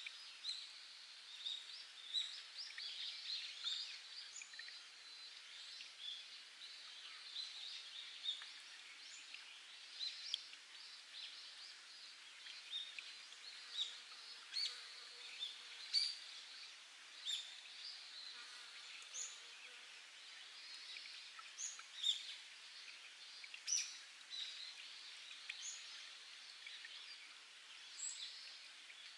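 Spring water trickling over rock in a steady faint wash, with frequent short plinks of falling drops and chirps of wild birds scattered irregularly throughout.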